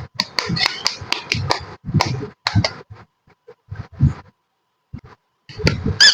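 Small plastic toy kitchen pieces being handled, giving irregular clicks and taps with short pauses between them. A high, wavering squeak starts right at the end.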